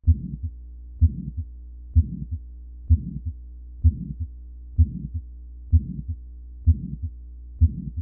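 Recorded heart sounds with a mid-systolic, crescendo-decrescendo murmur: a steady beat of about one a second, each a louder first heart sound followed by a softer second, with the murmur between them, over a low steady hum. This kind of murmur is the sign of a narrowed outflow, as in aortic stenosis, pulmonary stenosis or HOCM.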